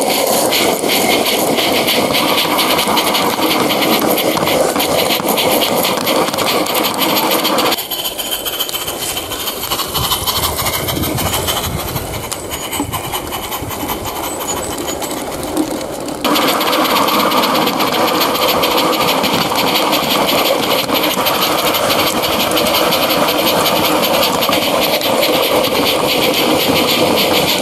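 Regner live-steam garden-railway model of the Harz 2-10-2T 99 222 running, its rapid exhaust beats mixed with steam hiss and the rattle of the running gear. The sound turns quieter and duller for several seconds in the middle, then comes back at full level abruptly.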